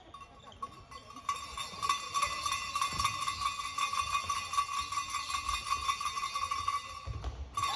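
A bell ringing nonstop: a steady high ringing with a fast, even rattle to it, which breaks off for a moment near the end. Dull thuds on the hall floor sound underneath.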